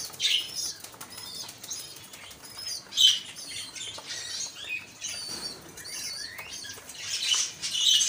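Pigeon squabs begging to be fed: quick, high squeaky peeping with wing-flapping, as their parents start feeding them. Louder bursts come about three seconds in and again near the end.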